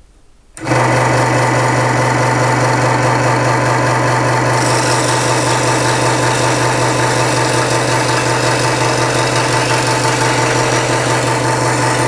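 Benchtop scroll saw switched on about half a second in, its motor and reciprocating blade running with a loud, steady hum. From about four and a half seconds in, a hissier rasp joins as the fine blade cuts a thin wooden board.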